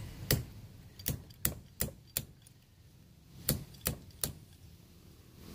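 Sharp clicks and taps of metal parts as a crane truck's swing gear is handled and fitted together by hand: five in the first two seconds, then three more about three and a half seconds in.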